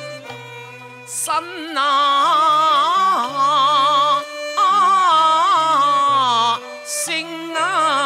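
Cantonese opera accompaniment ensemble playing an instrumental interlude between sung lines. A lead melody with wide vibrato comes in loud about a second in, over a line of short, stepping bass notes.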